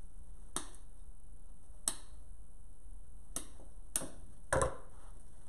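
Wire cutters snipping through the wire stems of artificial flowers: five sharp snips a second or so apart, the last one doubled and the loudest.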